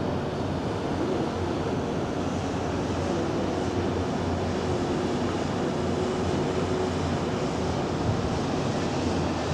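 Steady wind rush over the microphone with a faint, constant low hum beneath it.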